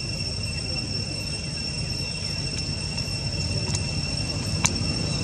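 Steady, high-pitched insect drone with a continuous low rumble underneath; a single sharp click about four and a half seconds in.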